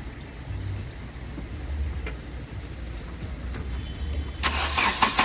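Hyundai i20 engine being started: a low uneven rumble, then about four and a half seconds in it starts and runs much louder. The engine is misfiring on cylinder 3, which the mechanic traces to an open circuit in that injector's wiring.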